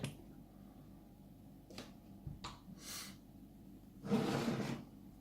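A few faint light clicks as the just-opened lock and its picks are handled, then a short breathy noise about four seconds in.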